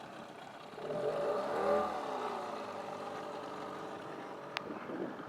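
Nissan 9.8 hp outboard motor running on a small bass boat. About a second in it gets louder and rises in pitch, then eases back down. A single sharp click sounds near the end.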